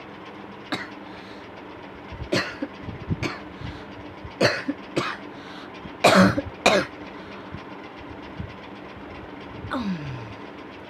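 A person coughing hard in a run of short, harsh coughs, loudest about six seconds in, with a groan falling in pitch near the end. An electric fan hums steadily underneath. The coughing is bad enough that it is bringing on nausea.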